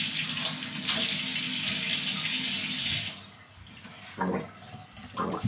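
Kitchen tap running water, shut off abruptly about three seconds in. Two short throat sounds follow near the end, with the head tipped back.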